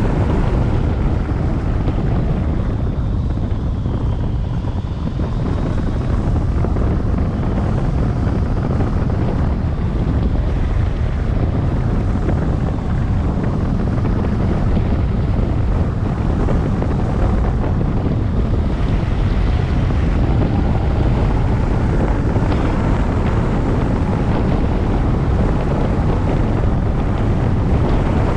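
Loud, steady wind rushing over and buffeting a hang glider's wing-mounted camera microphone in flight.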